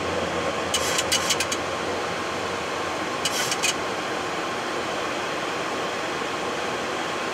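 Steady rush of airflow and engine noise on the flight deck of a Boeing 737-800 in its climb after takeoff. A few short clicks come about a second in, and again around three and a half seconds in.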